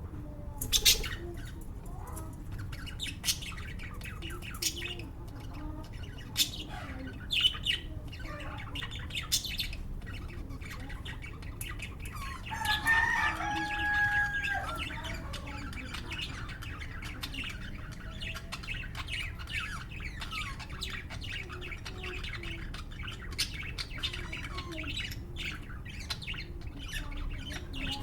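Lovebirds chirping and squawking in many short, sharp calls, with a longer held note about halfway through.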